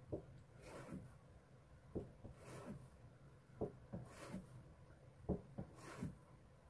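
Chef's knife slicing a block of tofu thinly on a plastic cutting board: four strokes, each a short tap of the blade on the board followed by a brief swish, roughly one every one and a half to two seconds.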